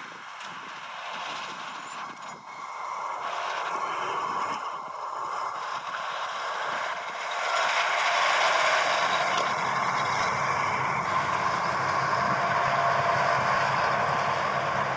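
Rostselmash Don 1500 combine harvester running while harvesting: steady engine and machinery noise that grows louder about seven seconds in.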